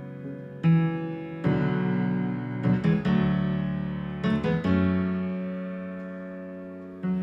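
Slow solo piano music: sustained chords struck a few times, each left to ring and die away, with a short cluster of quicker notes around the middle.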